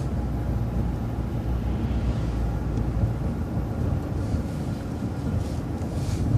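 City transit bus running at low speed, a steady low engine and road rumble, with a few faint brief hisses.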